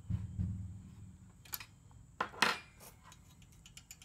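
Steel wrenches clinking against each other and against the rocker-arm adjusting nut and lock nut while the valve lash is being set on a small single-cylinder overhead-valve engine. There is a dull thud at the start, then scattered sharp metal clicks, the loudest about two and a half seconds in.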